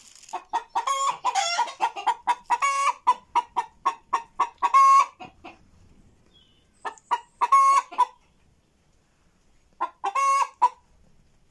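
Animal calls in three runs: quick strings of short pitched calls, each ending in a longer drawn-out call. They are loud, with quiet gaps between the runs.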